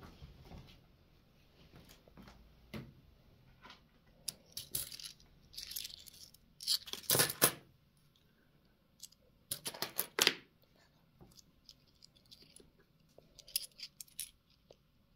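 2-euro coins clinking against each other as a stack is handled and shuffled in the fingers. The clinks come in several short bunches, the loudest about seven seconds in.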